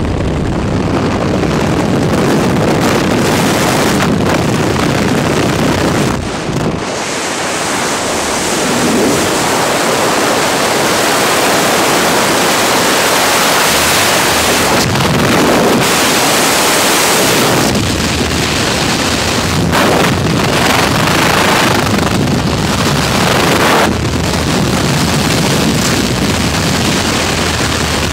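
Skydiving freefall: rushing wind buffeting a helmet-mounted camera's microphone, a loud steady roar of noise.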